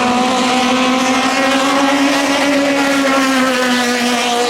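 Turbo-diesel engine of a racing longtail boat running hard at high revs, one loud steady engine note that climbs a little about halfway through and then eases back down.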